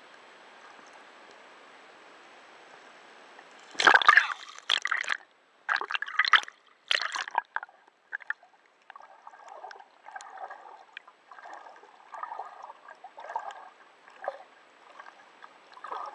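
Water sloshing and gurgling, heard muffled on a submerged camera: a steady hiss at first, loud splashing bursts starting about four seconds in, then softer gurgles about once a second.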